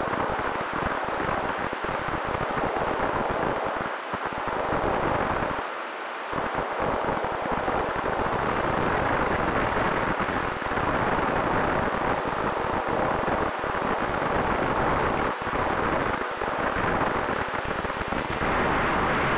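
Wind rushing over the microphone of a camera mounted on a radio-controlled model plane in fast, low flight: a steady noisy hiss that dips briefly about four and six seconds in, with a faint steady hum underneath.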